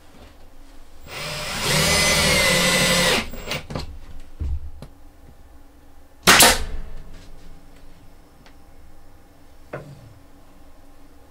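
A power drill runs in one burst of about two seconds. A few seconds later there is a single loud, sharp knock, and a fainter click near the end.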